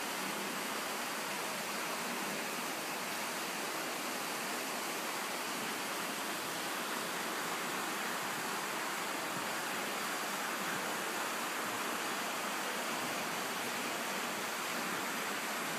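A steady, even hiss that stays at the same level throughout, with nothing else standing out.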